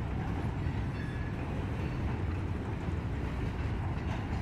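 Norfolk Southern freight train's boxcars rolling past, a steady low rumble of wheels on rail.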